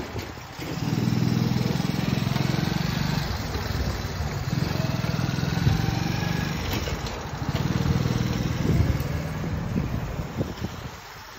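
Small motorcycle engine running close by in three long stretches, its note rising and easing between them.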